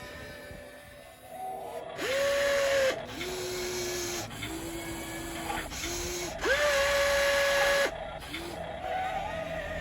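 Electric gear motors of a radio-controlled toy excavator whining in short starts and stops: a louder, higher whine for about a second, then several shorter, lower whines, then the louder, higher whine again for about a second and a half.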